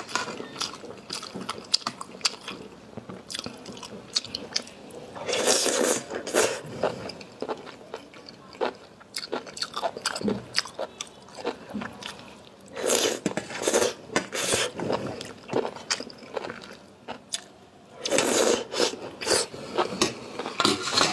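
Close-up eating sounds of enoki mushrooms in chili sauce: chewing, with three louder stretches of slurping strands into the mouth about five, thirteen and eighteen seconds in.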